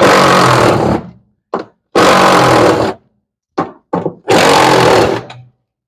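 Cordless drill-driver with a 10 mm socket running in three bursts of about a second each, backing out the screws on the underside of a top-loading washing machine.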